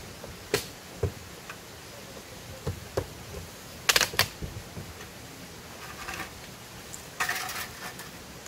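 Scattered clicks and knocks of small objects being handled, with a sharp double click about four seconds in and a short rustling scrape near the end.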